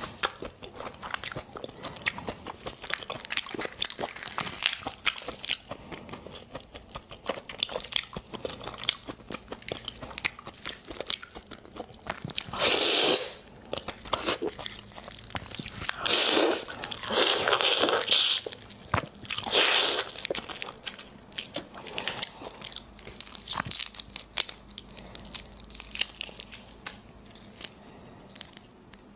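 Close-miked sounds of peeling and eating raw shrimp: a steady run of small clicks and wet chewing. Several louder crackling bursts of shell being pulled apart come between about twelve and twenty seconds in.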